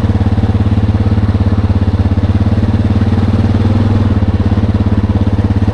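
ATV engine running at a steady speed while riding, with a fast even pulse and a strong low hum.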